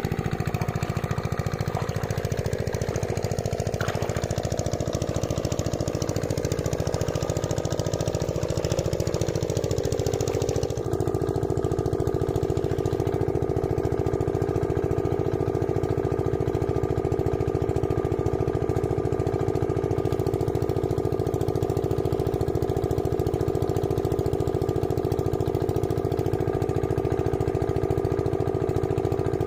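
A small engine running steadily, with an abrupt change in its tone about eleven seconds in.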